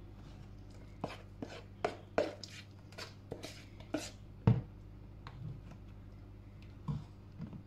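A metal spoon clinking and scraping against a mixing bowl while muffin batter is scooped out: a run of light, irregular knocks, the loudest about four and a half seconds in, then sparser toward the end, over a faint steady hum.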